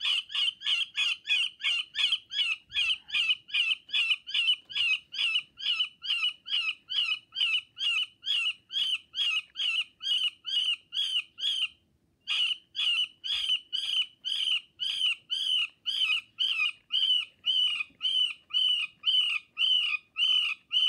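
Recorded distressed-rabbit squeals played by an electronic stoat sound lure through a small speaker in a plastic bottle: short high squeals repeated about two or three times a second, with a brief break about twelve seconds in.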